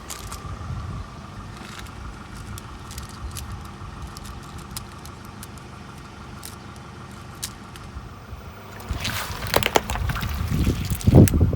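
Car engine running low and steady, then a quick run of sharp cracks and crunches with a heavy thump near the end as the tyre rolls over and crushes objects.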